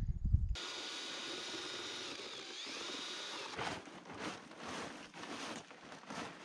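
A large plastic tarp rustling and crinkling in short bursts as it is pulled and folded by hand. A low rumble cuts off suddenly about half a second in.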